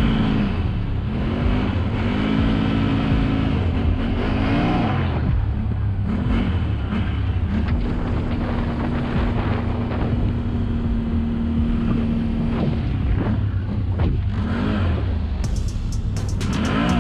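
Can-Am ATV engine revving up and down in repeated throttle blips, held at a steady speed for several seconds in the middle, then blipping again.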